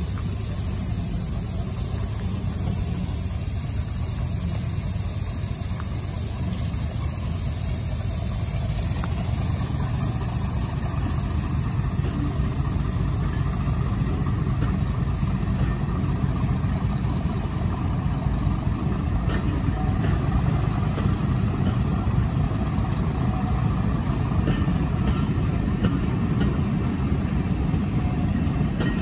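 Heritage passenger coaches rolling slowly past on the rails, a steady low rumble that grows slowly louder as the train goes by.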